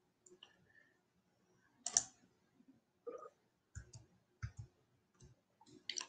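Faint, scattered clicks and small taps, about seven of them a second or so apart, the loudest about two seconds in, heard over a video call's audio.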